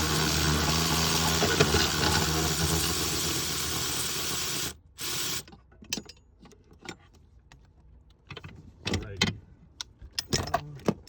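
A steady mechanical hum with a low drone runs for the first few seconds, then cuts off abruptly. After that come scattered clicks and knocks of hand tools working on the pedal-assembly bolts.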